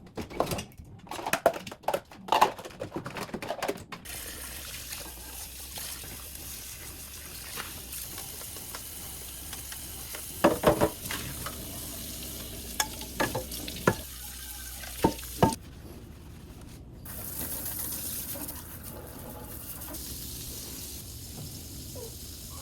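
Kitchen clean-up: dishes and utensils clattering and knocking in short bursts over a steady hiss of running water from a tap, which gets louder for a couple of seconds about three-quarters of the way through.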